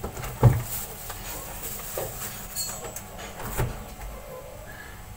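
A few dull knocks and thuds from things being handled in a kitchen, the loudest about half a second in and two softer ones later, over a low steady hum.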